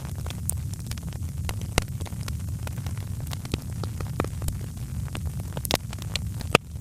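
Wood fire crackling: irregular sharp pops and snaps over a steady low rumble, with one louder pop near the end.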